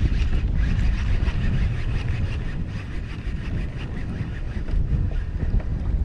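Wind buffeting the microphone out on open water: a steady low rumble, with a faint high whine in the first few seconds.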